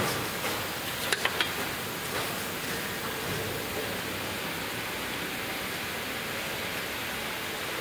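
Steady hiss of workshop background noise, with three small quick clicks about a second in as wires and their connectors are handled.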